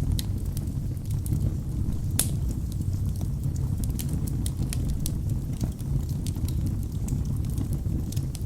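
Wood fire burning in a fireplace: a steady low rumble of flames with frequent sharp crackles and snaps from the logs, one louder pop about two seconds in.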